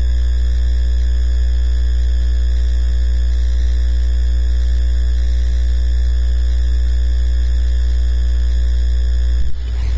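Loud, steady electrical mains hum, a low buzz with a stack of overtones and no other sound over it. It falters with a brief click and dip near the end.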